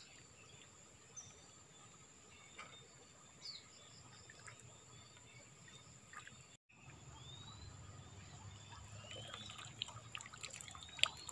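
Faint outdoor ambience of water trickling, with a few short rising bird chirps here and there. The sound cuts out completely for a moment a little past the middle.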